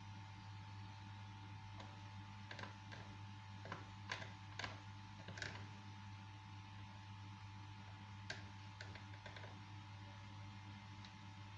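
Steady electrical hum, with about a dozen light, sharp clicks and taps in the middle stretch, like small parts or tools being handled.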